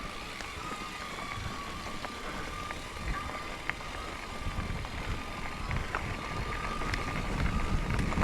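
Mountain bike rolling along a dirt trail: steady tyre and rattle noise with scattered small clicks, a thin steady whine above it, and growing louder near the end.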